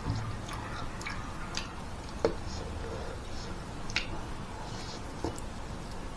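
Close-miked chewing of spicy noodles, with soft wet mouth clicks and smacks and a few sharper clicks scattered through.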